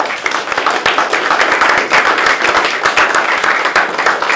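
Audience applause: a roomful of people clapping together, loud and dense.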